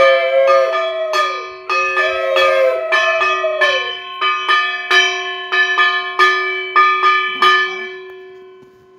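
Brass puja hand bell rung over and over, about two strikes a second, slowing and fading toward the end. Over it in the first four seconds, a conch shell is blown in two long notes, each falling off in pitch as it ends.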